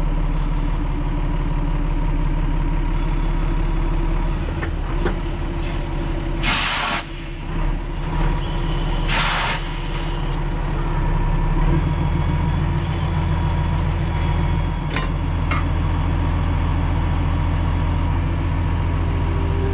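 Diesel engine of a truck-mounted tree spade running steadily while the spade's hydraulic blades are worked, with two short bursts of hissing air, about six and a half and nine seconds in. The engine note grows heavier a little past halfway.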